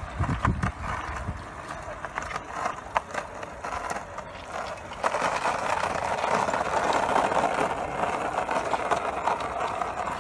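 Skateboard wheels rolling and rattling over rough pavement while a dog pushes the board, with scattered clicks and knocks from the board. The rolling noise gets louder about five seconds in.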